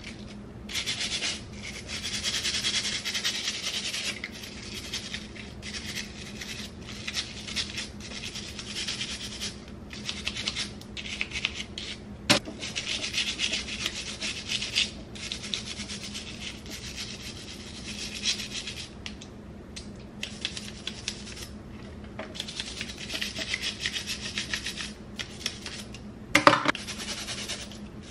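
A stiff-bristled scrub brush scrubbing a comb and a hairbrush, rapid back-and-forth rasping strokes in bursts with short pauses. A sharp click about twelve seconds in, and a knock near the end that is the loudest sound.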